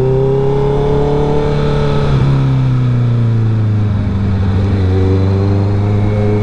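2021 Honda CB650R's inline-four engine running through an aftermarket R11 full exhaust while riding. The pitch climbs a little at first, sinks gradually as the throttle eases off, then holds steady and starts to climb again near the end, with wind and road noise underneath.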